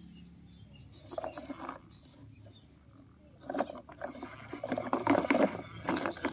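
Plastic toy truck wheels crunching and scraping over dry dirt and twigs in irregular bursts: a short run about a second in, then a longer, louder stretch in the second half.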